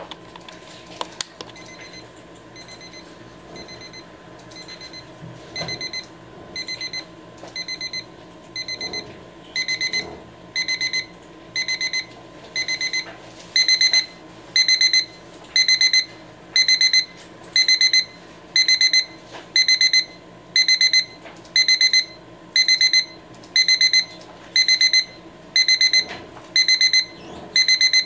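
Rhythm electronic alarm clock sounding its progressive (crescendo) alarm: bursts of rapid high beeps about once a second that get louder in several steps until they reach full volume about halfway through. A couple of sharp clicks come just before the beeping starts.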